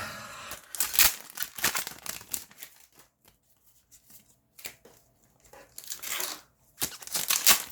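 Yu-Gi-Oh booster pack wrappers being torn open and crinkled by hand, in irregular bursts of tearing and rustling.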